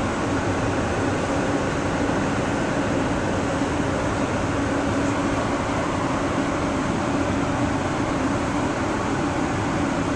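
Building ventilation running steadily: an even rushing noise with a low, constant hum.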